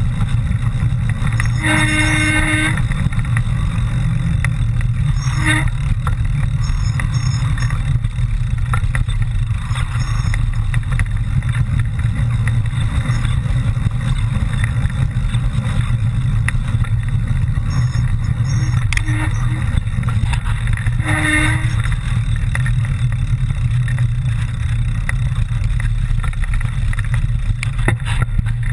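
A steady low rumble, with a few short pitched tones standing out over it about two seconds in, again about five seconds in and about twenty-one seconds in.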